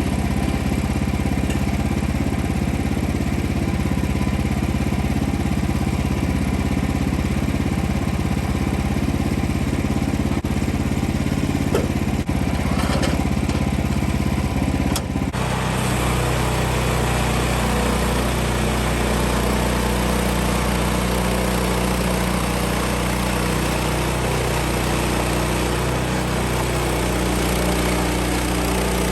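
Sawmill engine running steadily. About halfway through, its note shifts and a louder hiss joins it.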